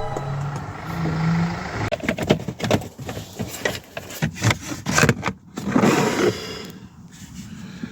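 Irregular clicks, knocks and scraping of plastic van dashboard trim and hand tools being handled as the steering column cowling is taken apart.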